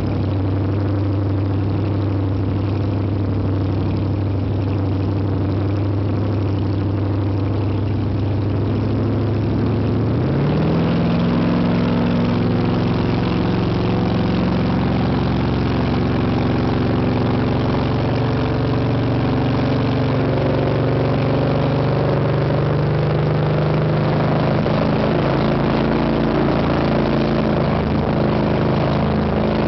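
Checkmate speedboat's 600-plus horsepower big-block V8 running under way, a steady drone that climbs in pitch about ten seconds in and then holds at higher revs, with rushing water and wind noise over it.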